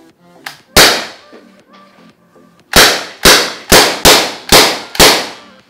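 A PCP-converted HDR68 17 mm (.68 calibre) revolver-style riot-control gun firing loud air shots: one about a second in, then six more in quick succession, roughly half a second apart.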